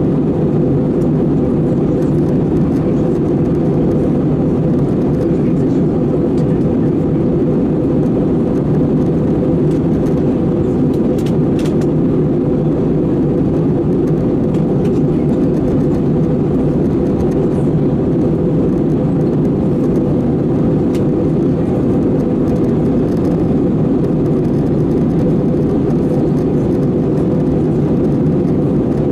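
Steady in-cabin drone of an Airbus A320-214 in flight: CFM56-5B engine and airflow noise with a faint steady hum on top, even and unchanging.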